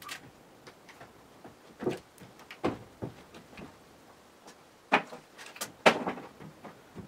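Irregular wooden knocks and clunks from an armful of old, weathered floorboards being carried across a barn loft's plank floor, with footsteps on the boards. The two loudest clunks come about five and six seconds in.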